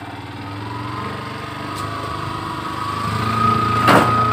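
Motorcycle engine running as the bike pulls away, getting louder as it picks up speed. One sharp knock near the end.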